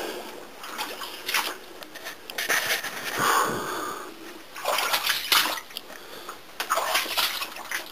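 A man breathing hard in a series of heavy, noisy breaths close to the microphone, out of breath from scrambling through the mine tunnel.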